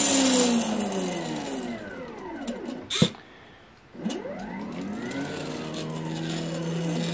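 Stepper motors of a homemade pen plotter moving the carriage: a whine that slides down in pitch to a stop about three seconds in, a sharp click, a short pause, then the whine climbs again and settles into a steady tone as the carriage travels.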